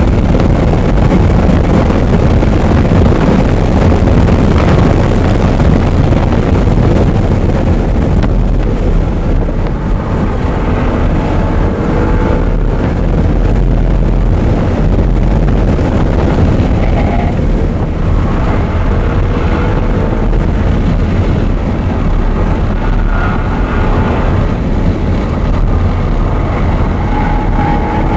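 Audi R8 driven hard around a race track: a loud, steady mix of engine and wind noise, with wind buffeting the microphone. The engine note climbs several times in the second half.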